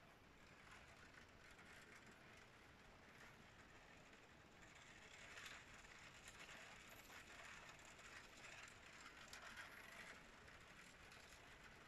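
Faint steady rain with scattered light ticks of drops, a little louder through the middle.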